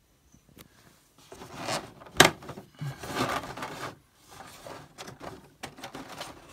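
Plastic packaging being handled as figure accessories are taken out: rustling and scraping in bursts, with one sharp click about two seconds in.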